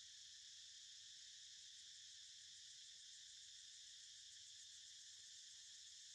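Faint, steady high-pitched chorus of insects trilling in the background, with a fast fine pulsing in the middle.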